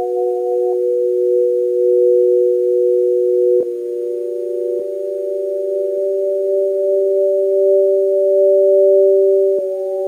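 Teenage Engineering OP-1 synthesizer playing a slow chord of a few held, steady notes through an Empress ZOIA running a wide stereo chorus and granular reverb patch. The chord changes about a third of the way in, and a higher note joins near the end.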